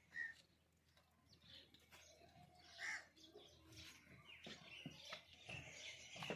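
Faint bird chirps, two short high notes about three seconds apart, over quiet farm background with scattered light clicks and rustling.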